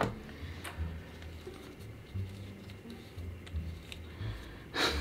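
A few faint, scattered clicks and taps as a carbon brush and its screw are worked back into the housing of a longarm quilting machine's motor by hand.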